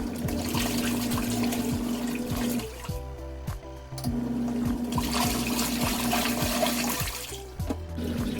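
ZENY portable twin-tub washing machine running with water churning and a steady motor hum, in stretches of a few seconds broken by short pauses. Background music with a steady beat plays underneath.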